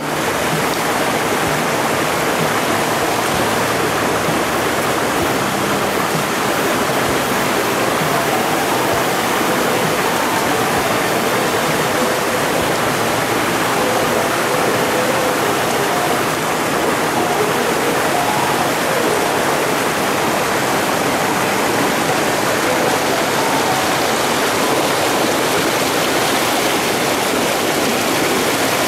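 Mountain valley stream rushing over rocks: a loud, steady, unbroken rush of water.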